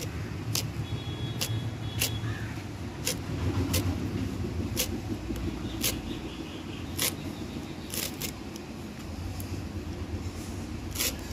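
Banana flower florets being cut against a boti's upright blade: sharp clicks about once a second at an uneven pace, a dozen or so in all. Under them runs a steady low rumble.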